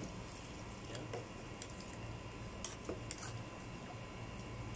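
Metal ladle clicking and clinking lightly against a stainless steel cooking pot several times while the contents are stirred, over a steady low hum.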